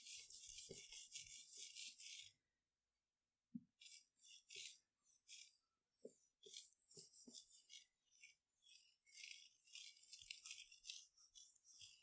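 Faint, rhythmic swishing of a whiteboard duster scrubbed back and forth over the board, stroke after stroke. The scrubbing stops for a moment about two seconds in, then carries on, with a few soft knocks of the duster against the board.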